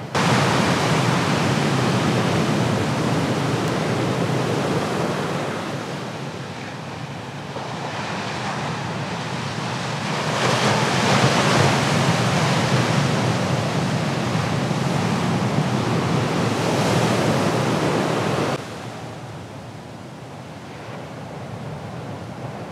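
Ocean surf breaking on a reef: a steady, loud rush of whitewater with wind on the microphone. The level jumps up suddenly at the start, swells in the middle and drops abruptly about three-quarters of the way through.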